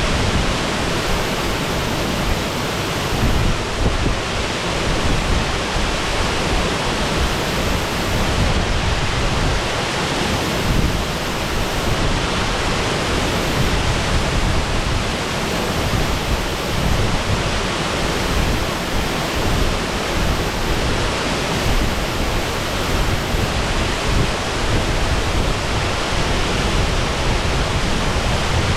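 Steady rush of a waterfall, a loud even roar of falling water.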